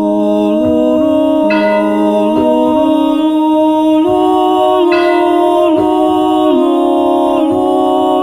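Soundtrack music: a slow sung chant in several voices in harmony, each note held for about a second before the voices step to the next chord.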